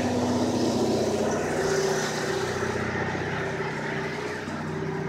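An engine idling with a steady, low, humming drone.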